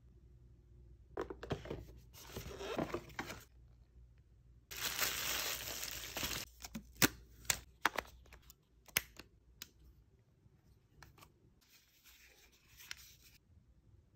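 Unboxing handling noises: packaging rustling and tearing in three stretches, the loudest about five seconds in. In between comes a run of sharp clicks and knocks as the battery goes into the Sony ZV-E10's battery compartment.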